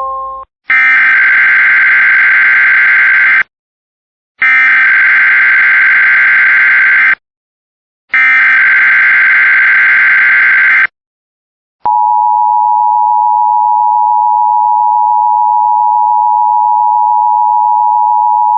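Emergency Alert System signals: three bursts of SAME header data, a harsh digital warble about three seconds each with a second's silence between, then, about twelve seconds in, the steady two-tone attention signal begins. Together they announce a tsunami watch.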